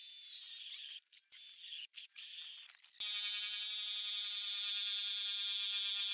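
Bosch cordless combi drill with a hole saw boring into MDF board in short stop-start bursts. About three seconds in, a jigsaw starts abruptly and runs steadily as it cuts through the MDF; it is the loudest sound.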